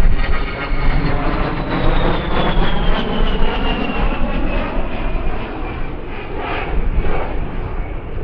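A USAF A-10 Thunderbolt II's twin TF34 turbofan engines: a loud jet rumble with a high whine that slides steadily down in pitch as the jet moves away, the sound slowly fading.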